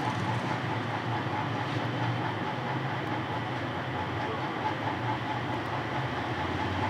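Steady hum and hiss of a small motor-driven fan running.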